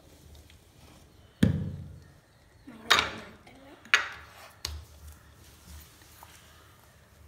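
Four sharp knocks of a spoon and a plastic blender jar being handled on a kitchen counter while flour is added. The first, about a second and a half in, is the loudest and has a dull thud. A second knock follows about a second and a half later and rings briefly, and two lighter taps come after it.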